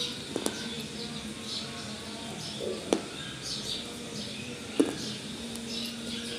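Pieces of Multani mitti (fuller's earth clay) being bitten and chewed: a few sharp crunching snaps, the loudest about three seconds in and near five seconds, with softer crumbly chewing between.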